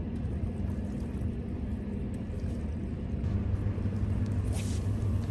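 Steady low rumble and hum of distant machinery, with a few faint ticks and a brief hiss near the end.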